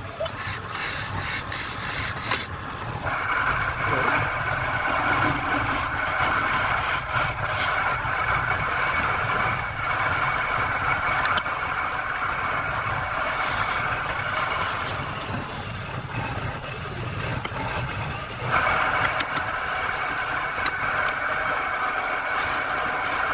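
Wood lathe running while a turning tool scrapes and cuts the spinning wood, a steady rasping hiss over a constant whine. The cutting grows louder about three seconds in and again later on.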